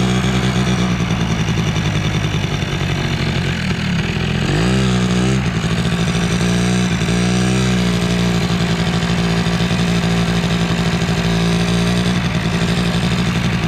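Polaris Sportsman 90's 90cc two-stroke engine running while the quad is ridden. Its pitch dips and rises with the throttle twice around the middle, then holds steady.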